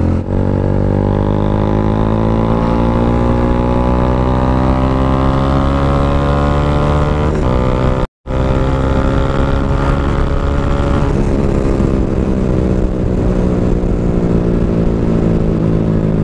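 Bajaj Dominar 400's single-cylinder engine pulling hard under acceleration, its pitch climbing for several seconds, dipping briefly at a gear change, then climbing again before settling to a steadier cruise. The sound cuts out for a split second near the middle.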